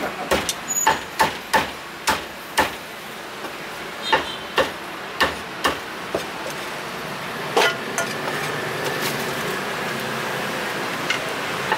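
Meat cleaver chopping roast duck on a thick round wooden chopping block: a dozen or so sharp chops, quick at first and then more spaced out, the last about seven and a half seconds in. After that there is only steady street background noise.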